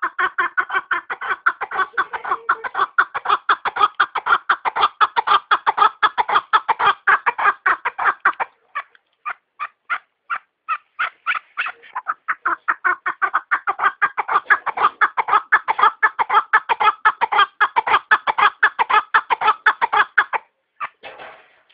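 Chukar partridge calling: a long rapid run of repeated clucking notes, slowing to spaced single notes about halfway through, then picking up into a second fast run.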